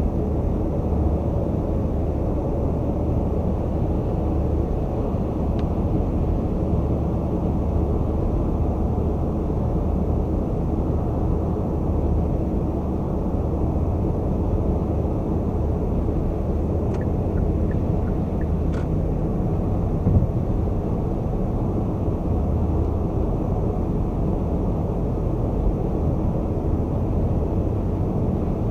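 Car travelling at highway speed: a steady, even drone of tyre and road noise with engine hum. A few faint clicks come about two-thirds of the way through, followed by a brief bump.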